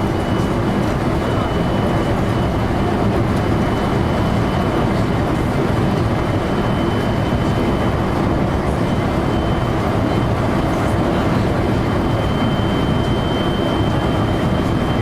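JR local electric train running steadily along the line, heard from inside: a continuous rumble of wheels on rail with a faint, thin high whine held throughout.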